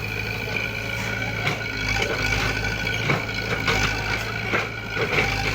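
Heavy diesel machinery engine running steadily, with scattered short knocks and clanks.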